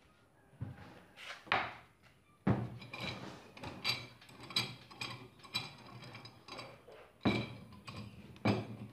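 Orange F-style steel bar clamp being handled: a run of ringing metal clacks, about two a second, as its sliding jaw rattles on the bar and its screw is worked, then two sharper knocks near the end as it comes down on the wooden worktable.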